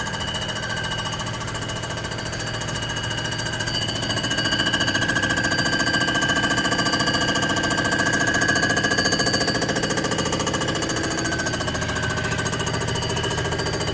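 Comec ACF200 head surfacing machine running its cutter through a 3 thousandths pass across a Rambler 327 cylinder head. It makes a steady, fast-rhythmed machine whine that grows louder about a third of the way in, while the cutter is across the head, and eases off near the end.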